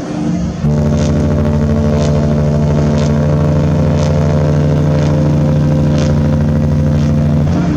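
Horn of the cruise ship Mariner of the Seas sounding one long, deep, steady blast of about seven seconds that starts and cuts off abruptly, the prolonged blast a ship gives as it gets under way.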